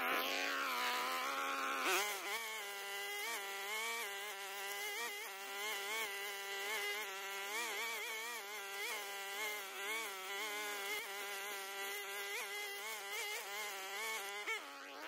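String trimmer running and cutting grass and weeds, its motor pitch dipping and recovering over and over as the line meets the growth.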